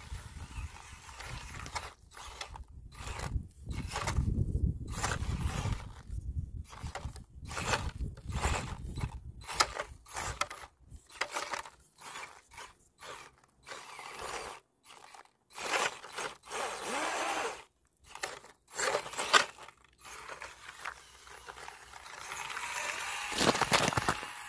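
Small RC crawler drivetrain with a brushless motor, an Axial SCX24 with geared transmission, running in many short stop-start throttle bursts with a whirring, ratcheting gear clatter.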